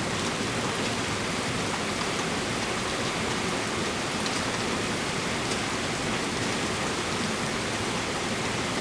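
Torrential rain pouring down in a steady, even hiss, with scattered drops pattering on nearby surfaces.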